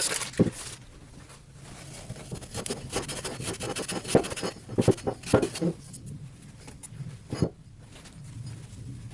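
Irregular knocks, clicks and rattles of parts being handled and set down on a work surface: one sharp knock about half a second in, a quick cluster around the middle, and a last knock near the end.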